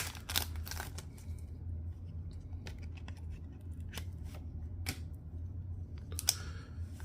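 A small pack of trading cards being opened and handled: a quick burst of crackling, tearing and snipping sounds in the first second, then a few scattered light clicks and rustles as the cards are slid out, over a steady low hum.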